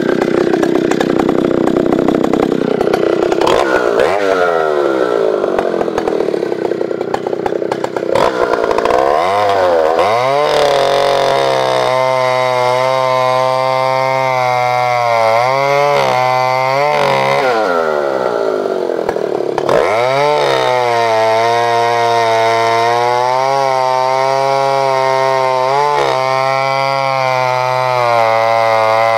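Vintage Solo 642 two-stroke chainsaw running at high revs for the first few seconds, then the revs fall away and it settles to a low, slightly uneven idle, with two short blips of the throttle about halfway through.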